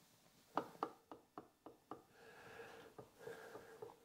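Faint, irregular metal clicks and knocks as the rotary table's mounting plate is rocked back and forth by hand on its central hub: the plate is a sloppy fit on the hub and shifts with play.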